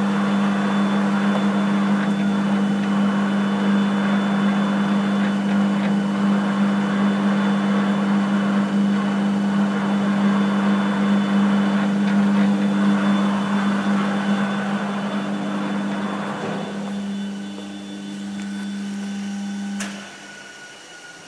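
Large-swing lathe (1350 mm swing) running, a steady low hum with a whir over it. The sound fades somewhat a few seconds before the end, then after a sharp click near the end it is much quieter.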